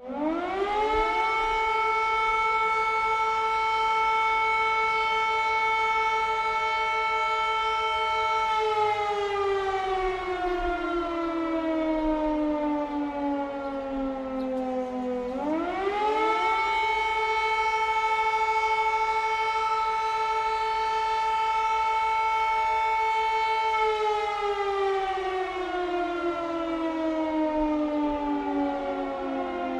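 Civil protection air raid siren sounding a rising and falling wail. Its pitch climbs within about a second to a steady high tone, holds for about seven seconds, then sinks slowly over about seven seconds. The cycle then repeats.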